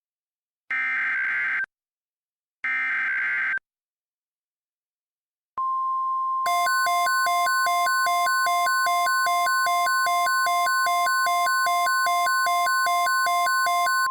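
The last two screeching digital data bursts of an Emergency Alert System SAME header, each about a second long. After a two-second pause comes the steady 1050 Hz NOAA Weather Radio warning alarm tone. About a second later a pulsing beep joins it, at roughly two beeps a second, signalling an incoming emergency alert.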